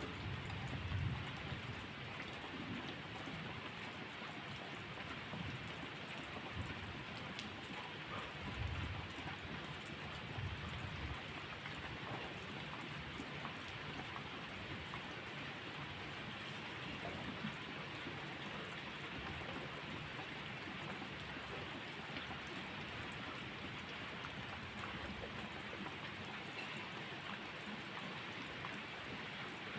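Steady rain falling, an even hiss throughout, with low rumbles of distant thunder trailing off in the first second or two and returning briefly about nine to eleven seconds in.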